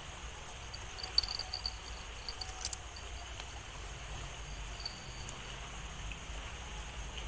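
Insects chirping, cricket-like: a high trill in short pulses, strongest between about one and two seconds in, over a steady low background rumble. Two sharp clicks stand out, one a little after a second and one near the middle.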